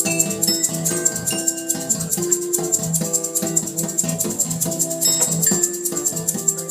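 Live acoustic rock instrumental: an acoustic guitar picks a run of notes while a shaker keeps a quick, even rhythm, before the vocals come in.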